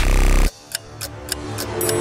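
Logo-animation sound effects: a buzzy tone that cuts off abruptly half a second in, then a run of light ticks that grows louder, with a held note coming in near the end.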